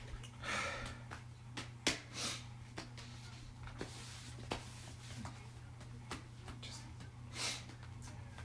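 A person's short breaths or sniffs, about four of them, with a few small sharp clicks in between, over a steady low electrical hum.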